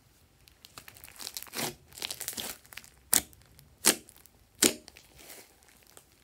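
A large mass of slime being folded and pressed by hand: sticky crackling and squishing, then three sharp pops about two-thirds of a second apart as pockets of trapped air burst under the fingers.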